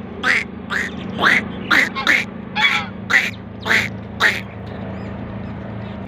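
Domestic ducks quacking: about nine harsh quacks, roughly two a second, that stop about two-thirds of the way through, over a low steady hum.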